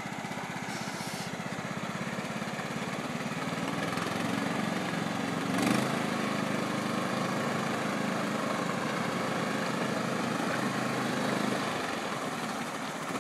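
John Deere tractor engine running steadily with an even firing beat, growing a little louder about four seconds in.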